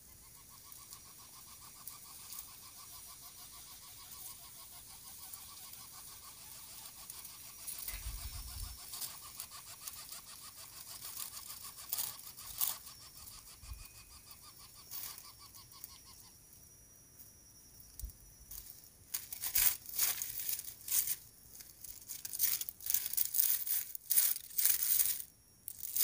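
Lesser coucal nest: a steady, fast buzzing trill from the downy chick begging as it is fed runs for the first two-thirds. From about three-quarters in, loud irregular crackling rustles of the dry grass nest take over as the adult moves off the nest.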